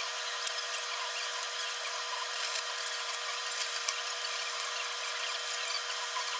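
Flux-core MIG welder (Hitbox HIM200) striking short tack welds: a few brief bursts about half a second, two and a half and three and a half seconds in, over a steady high hiss.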